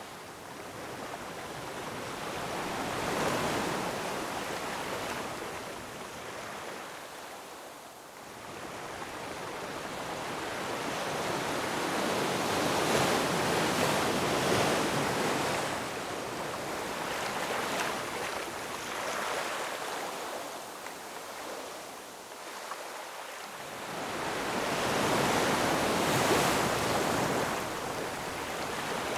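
Ocean surf washing over a rocky shore, swelling and falling back in slow surges roughly every ten seconds.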